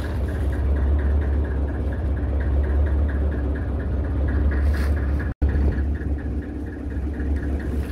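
A fishing boat's engine running steadily with a deep, even hum, briefly cut off for an instant just past five seconds in.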